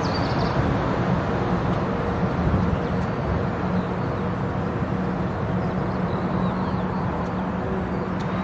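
A Boeing 747's four jet engines heard after takeoff: a steady rumble with a low hum that slowly fades as the aircraft climbs away.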